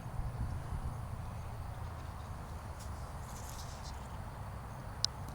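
Outdoor ambience: a steady low rumble with faint, brief high chirps now and then, and one sharp click near the end.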